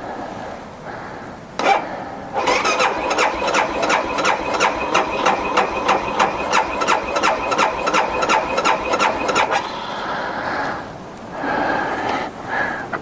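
2012 BMW G 650 GS Sertao's single-cylinder engine being cranked by its electric starter for about seven seconds, about four even compression pulses a second, after a click. The engine does not catch: a cold no-start.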